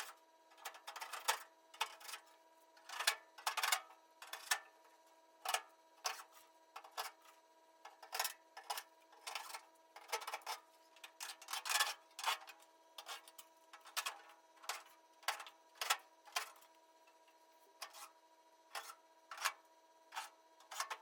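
Irregular light knocks and metallic clanks, one or two a second, as a sheet-steel inner rocker panel is handled and fitted back onto an Early Ford Bronco's body tub, over a faint steady hum.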